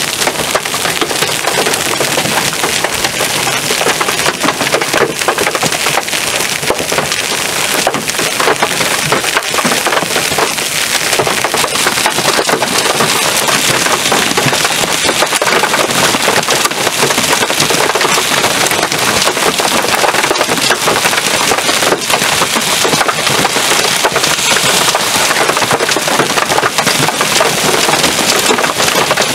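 Hail and heavy rain from a severe thunderstorm pelting a hard surface: a loud, steady, dense crackle of sharp impacts.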